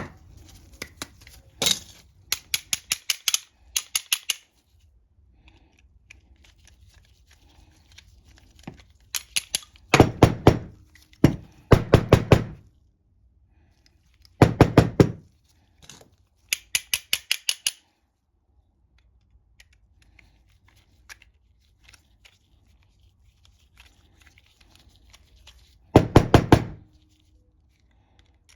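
Small metal tools clicking and knocking against a lawn mower carburetor while its main jet is being worked out: several runs of quick, even clicks and a few louder clattering bursts, with quiet stretches between.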